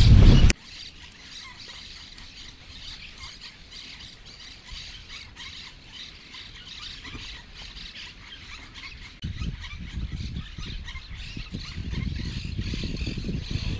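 Shrill chatter of birds, many short high calls one after another. A loud rumble of wind on the microphone cuts off half a second in, and a lower wind rumble returns from about nine seconds in.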